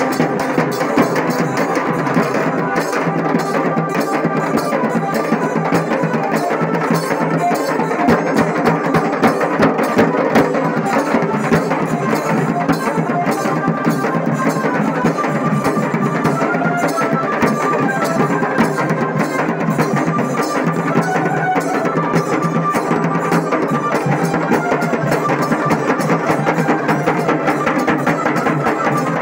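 Live street drumming: a dhol and a large stick-beaten drum playing a fast, steady, driving rhythm.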